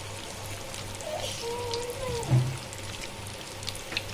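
Breaded chicken pieces deep-frying in a shallow pan of hot oil: a steady sizzling crackle of bubbling oil. A faint wavering tone sounds over it between about one and two and a half seconds in.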